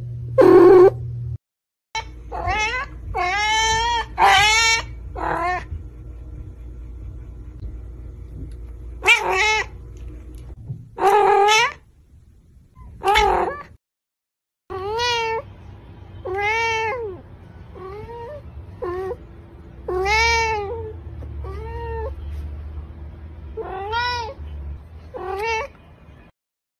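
Domestic cats meowing: more than a dozen separate meows from several cats, many rising then falling in pitch, broken by two brief silent gaps where one clip cuts to the next.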